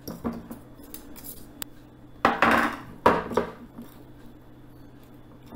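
A metal fork scraping and clinking against a glass bowl while working a dry, crumbly crumble-topping mixture, with two louder scrapes about two and three seconds in.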